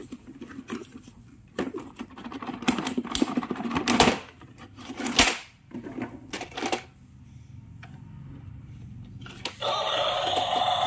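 Clicks, knocks and rustles of a plastic toy garbage truck being pulled from its cardboard box and handled on a tile floor. Near the end the battery-powered toy is switched on and its electronic music starts playing.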